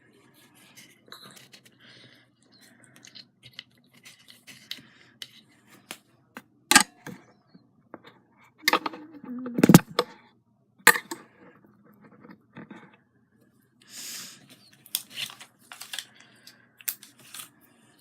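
Scattered clicks, taps and rustles of small hand craft work at a table, with a few sharp taps louder than the rest about a third and halfway through and a quicker run of them near the end.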